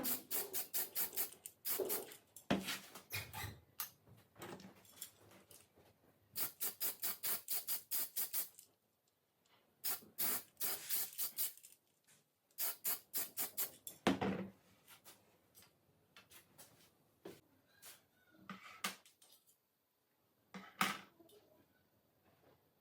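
Short runs of quick scraping or rubbing strokes, about eight a second, from hand work on metal pistol parts, with pauses and a few single clicks between the runs.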